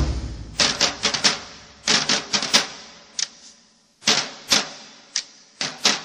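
Sharp cracking strikes in quick groups of two to four, with a few single ones, each ringing out in the reverberation of a large hall.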